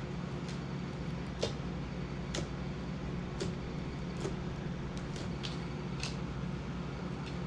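Slime being kneaded and stretched by hand, giving scattered small clicks and pops, about one a second, over a steady low hum.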